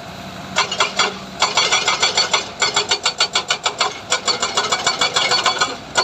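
Mining machinery running with a steady engine hum under a fast, irregular clatter of sharp clicks, several a second, which pauses briefly about half a second in and again near one and a half seconds.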